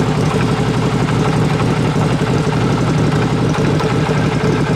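Motorcycle engine idling steadily, loud and close, with a rapid, even firing pulse.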